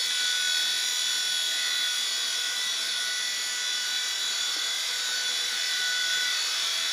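Small indoor RC helicopter's electric motors and rotors running steadily at full throttle, a constant high whine with whirring. It is giving little lift at full throttle, which the flyers put down to a weak battery or a failing motor.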